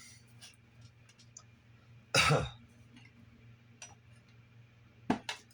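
A man coughs once, sharply, about two seconds in. A few light clicks follow, the clearest two close together near the end.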